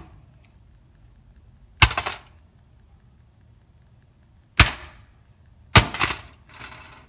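Pickaxe striking a wrecked satellite receiver's metal case on concrete three times: sharp impacts about two seconds in, then twice more close together near the end, the last followed by a brief rattle of scattering debris.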